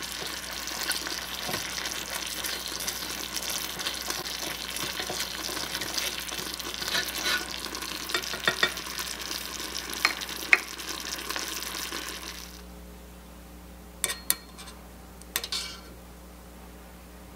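Beef in creamy mushroom sauce sizzling in a tiny stainless steel saucepan while a miniature wooden spatula stirs it, with a few sharp taps against the pan. The sizzling stops suddenly about two-thirds of the way through, followed by a few light clinks of a small metal spoon in the saucepan.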